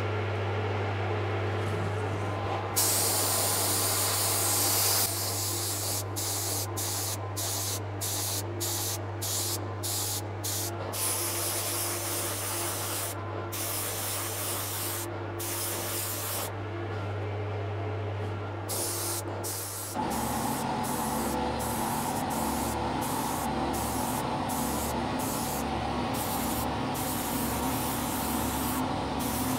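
DeVilbiss SRi Pro spray gun hissing as it lays light coats of 2K clear lacquer, the trigger pulled and released in repeated passes with short breaks between them. A steady low hum from the workshop ventilation fan runs underneath, changing in tone about two-thirds of the way through.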